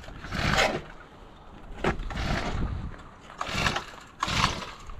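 Recoil pull-starter of a 40cc four-stroke mini-bike engine being yanked about four times, each pull a short rasping crank that does not catch. The engine is not firing because no fuel is reaching it yet.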